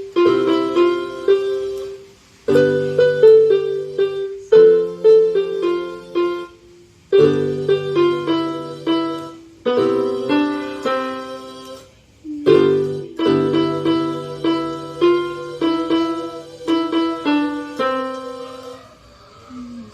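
Electronic keyboard playing a simple melody over held bass notes, in short phrases of two or three seconds with brief pauses between them.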